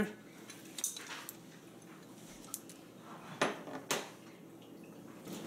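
A few light clinks and knocks of kitchenware as a bowl of ginger, star anise and green onion is tipped into a pot and the bowl set down, the strongest two a little past the middle.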